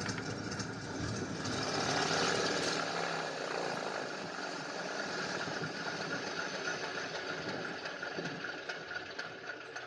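Stearman biplane's radial engine running, loudest about two seconds in. It then gradually fades away as its low rumble thins out.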